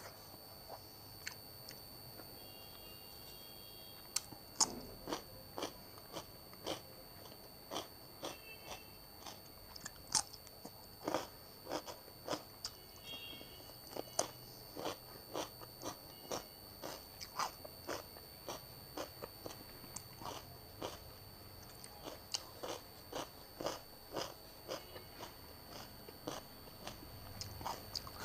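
Close-miked eating: crisp crunching bites and chewing of crunchy food, a sharp crunch about once or twice a second after a quieter first few seconds.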